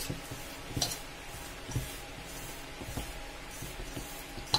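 A hand rubs and mixes dry flour with oil in a steel bowl, making a soft scraping rustle. There is a sharp click against the bowl at the start and another about a second in, followed by a few fainter knocks.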